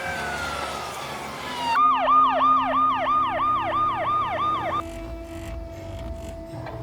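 Emergency vehicle siren: a slow wail falling in pitch, then a fast yelp of about three rising-and-falling sweeps a second, which cuts off suddenly about five seconds in. After it, a faint steady high tone sounds over a low rumble.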